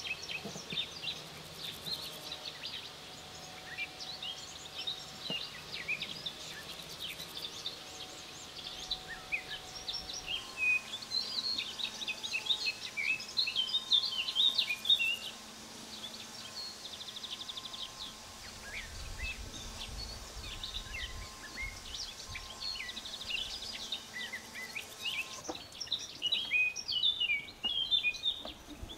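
Small birds chirping and twittering, a chorus of many short high calls that grows busiest around the middle and again near the end, with a faint steady hum under the middle stretch.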